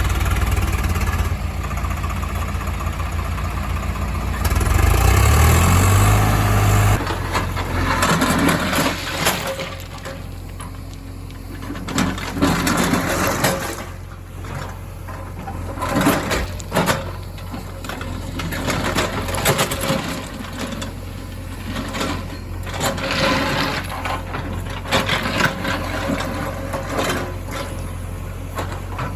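Heavy diesel engine running, revving up about five seconds in, then settling back to a steady run under a string of sharp clanks and clatters.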